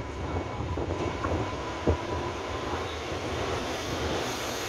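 Taiwan Railway train running away down the line, a steady rumble of wheels on rails. A faint steady tone sounds for the first two seconds, and there is one short knock about two seconds in.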